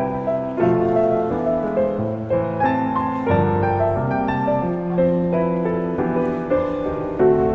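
Background piano music, a gentle melody of sustained notes over low chords.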